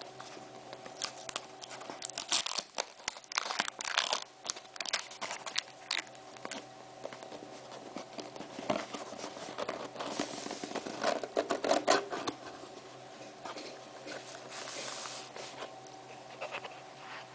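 A cardboard box being opened and its packing handled by hand: scattered clicks, scrapes and rustling of card and paper, with longer rustling sounds about ten and fifteen seconds in, over a faint steady hum.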